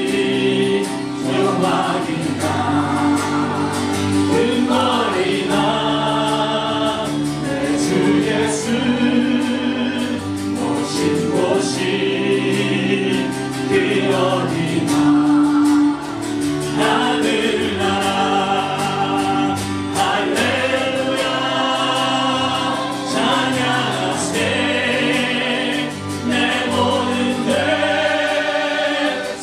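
A small vocal group of women's and a man's voices singing a Korean gospel song in harmony through microphones, over sustained instrumental accompaniment.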